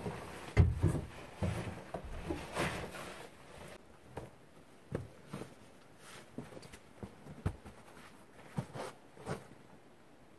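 Handling of camping gear: rustling of clothing and a backpack with knocks and thumps as it and a rolled sleeping mat are carried through a wooden doorway and set down, plus scattered footsteps. Busiest in the first few seconds, with one sharp thump near the start, then sparse taps and clicks.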